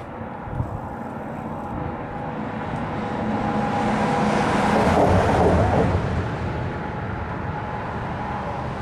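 A vehicle passing by, growing louder to a peak about five seconds in, then fading.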